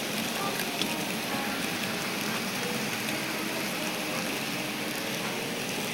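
N scale model freight cars rolling over the layout's track, a steady rattling hiss of many small wheels on rail.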